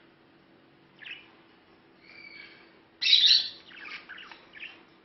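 Budgerigars chirping and chattering: a short call, a brief held whistle, then a loud burst of squawky chatter about three seconds in, trailing off into shorter chirps.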